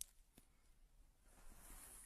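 Near silence: a faint click at the start, then a faint hiss from about halfway through.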